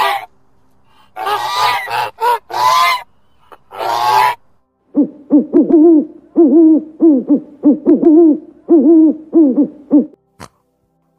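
Geese honking in a series of calls, then, about halfway through, an owl hooting in a quick run of short hoots, about three a second.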